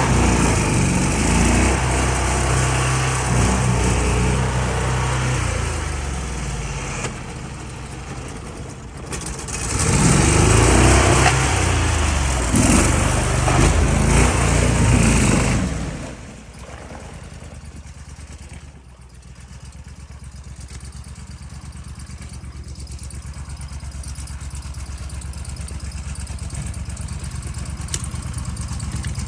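Boat engine running hard and revving for about the first half, then dropping suddenly to a lower, steady run that slowly gets louder.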